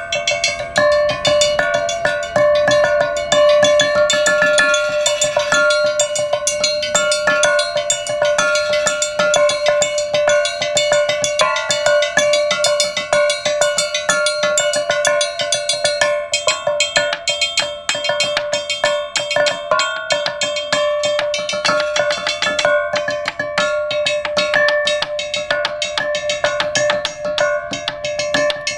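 Open rectangular metal boxes struck with mallets by two players in a fast, continuous flurry. Each strike rings with a bright metallic pitch, the notes change constantly, and one lower note rings on throughout.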